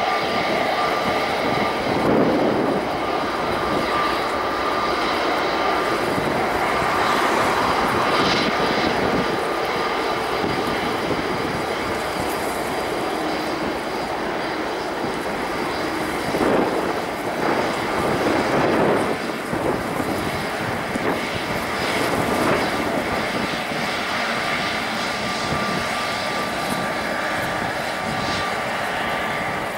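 Airbus A320-251N (A320neo) airliner's CFM LEAP-1A turbofan engines running at taxi power as the aircraft taxis past: a steady rushing engine sound with a thin, steady whine.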